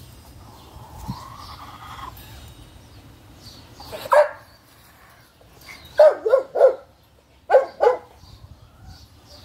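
Dog barking in short bouts: a single bark, then a quick run of four, then two more.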